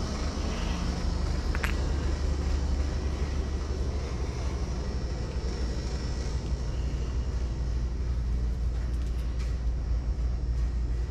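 Steady low rumble with an even background hiss, and a single sharp click about two seconds in.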